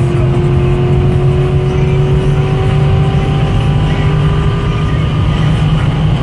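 Cammed LS3 V8 of a 2012 Corvette Grand Sport, breathing through long-tube headers, a catless X-pipe and a Borla exhaust, accelerating hard in one gear. Its pitch climbs slowly and steadily as revs rise from about 5,000 toward 6,000 rpm. Heard from inside the cabin.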